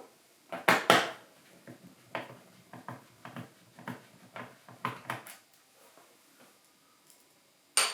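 Small clicks, taps and knocks of a magnetic screwdriver and loose screws working on the plastic underside of a ThinkPad X230 laptop as the keyboard screws are taken out. Two sharper knocks come about a second in, an irregular run of light taps follows, and one more sharp click comes near the end.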